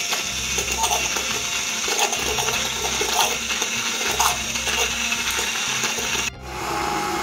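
Bajaj immersion hand blender running in a glass bowl of fresh cream, the motor whining steadily while the cream churns and sloshes, with a swishing surge about once a second. About six seconds in the sound breaks off suddenly and the blender runs on with a changed, steadier tone.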